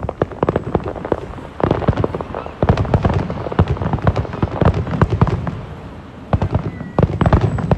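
Aerial fireworks bursting in rapid succession: a dense run of sharp cracks and bangs, with louder volleys about one and a half, three, five and seven seconds in.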